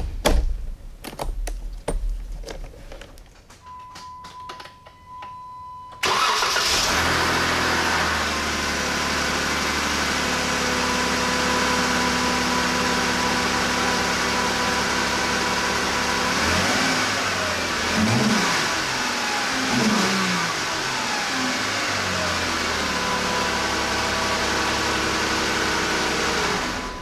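A few clicks of work at the battery terminal, then a steady beep. About six seconds in, a 2013 Jeep Wrangler's 3.6-litre Pentastar V6 starts and settles into a steady idle, with a few short rises and falls in pitch partway through. This is the first start after new spark plugs and performance coil packs were fitted.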